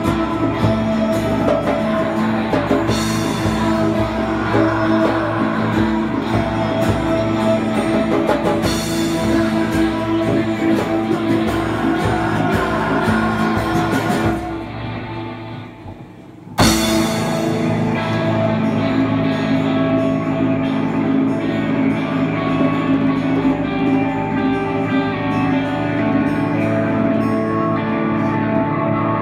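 Live rock band playing, with electric and acoustic guitars. About halfway through the band drops away for about two seconds, then the full sound comes back in sharply.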